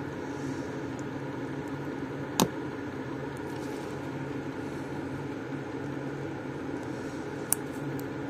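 Steady electrical hum from workbench equipment, with one sharp click about two and a half seconds in and a fainter click near the end.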